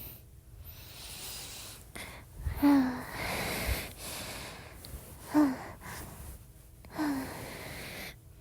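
A woman breathing close to a phone microphone: slow breaths in and out, three of them ending in a short, soft voiced sigh.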